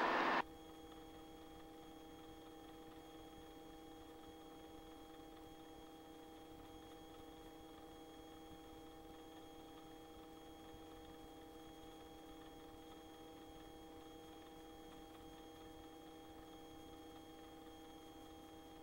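Faint, steady electrical hum of a few constant tones on the helicopter's intercom audio line, which cuts off sharply from a loud sound about half a second in. The engine and rotor are not heard.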